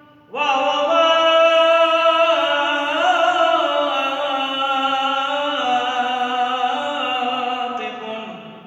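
A man's solo voice chanting one long melismatic phrase of Arabic Christian liturgical chant, beginning just after the start and stepping slowly downward in pitch before dying away near the end.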